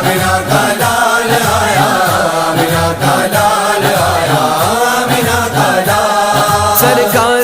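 Urdu naat, a devotional song in praise of the Prophet, sung as a chant over a backing with a steady, repeating low beat.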